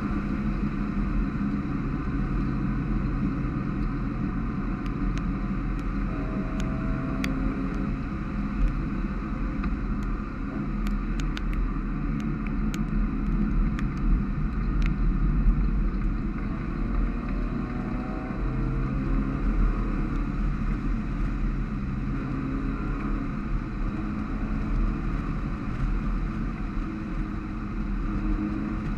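Mazda MX-5 race car's four-cylinder engine running on the throttle, heard from inside the cockpit at a fairly steady pitch, over a constant hiss of tyre spray from the wet track. A scatter of short sharp ticks comes in the middle.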